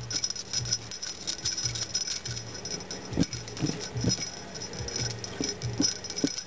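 A small jingle bell ball jingling, with irregular light taps and rattles of toys knocking against a cardboard box as a kitten bats at them.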